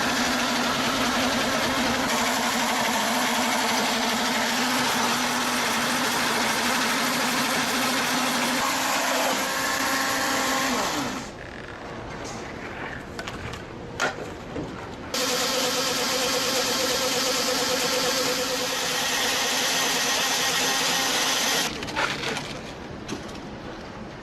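Motor-driven wood-cutting machinery running loud and steady with a constant hum, its pitch falling away about ten seconds in as it spins down. After a quieter stretch with a few sharp knocks, a machine with a higher hum starts suddenly and cuts off again about six seconds later.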